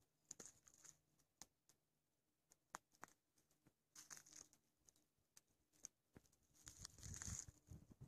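Faint footsteps crunching through dry conifer needles and dead twigs on the forest floor, in a few short bursts with scattered small snaps, the last burst the loudest.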